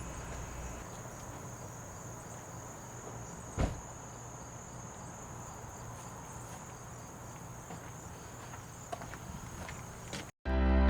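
Steady high insect trilling over a faint background hiss, with a single knock about three and a half seconds in. Music starts abruptly just before the end.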